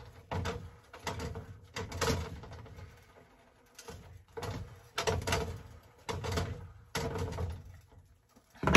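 A silicone spatula pressing a quesadilla down in a frying pan on an electric coil burner, the pan knocking and scraping on the coil in a series of short dull strokes about once a second, with a louder knock near the end.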